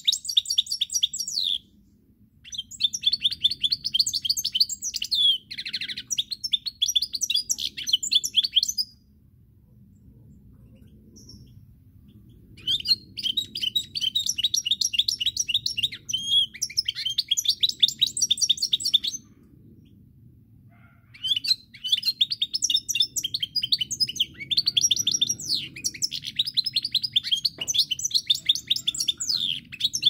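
Caged European goldfinch singing: long phrases of rapid twittering notes, each several seconds long, broken by pauses of two to four seconds.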